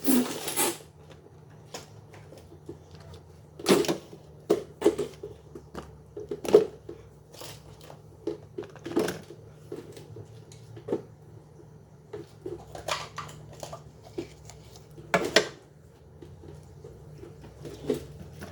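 Food containers and packets being handled in a refrigerator: irregular knocks, clatters and rustles, a few of them sharp and loud.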